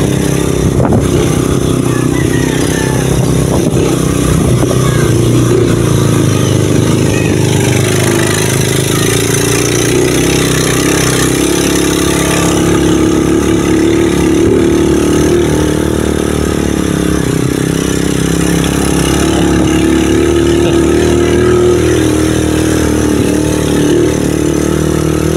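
Small motorcycle engine running steadily while under way, heard from the back seat, its pitch shifting a little as the speed changes.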